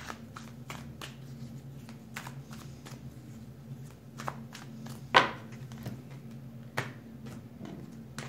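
A tarot deck being shuffled by hand: soft, irregular card flicks and taps, with a sharper snap about five seconds in and another near seven seconds. A steady low hum sits underneath.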